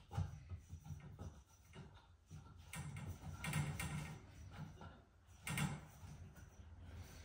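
Light, irregular scraping and tapping of hands fitting a small wall rosette onto a copper pipe at the wall, with a cluster of scrapes from about three to four seconds in and a sharper knock at about five and a half seconds.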